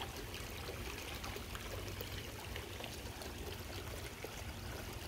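Water splashing and trickling steadily from a small fountain jet in a backyard spa, over a low steady rumble.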